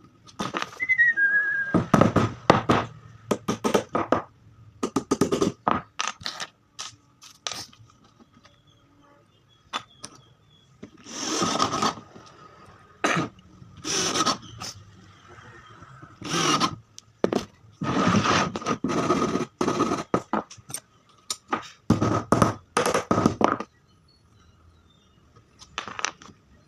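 Bursts of knocking and scraping on wood, short clattering runs of strikes with pauses between them, like wood being worked by hand.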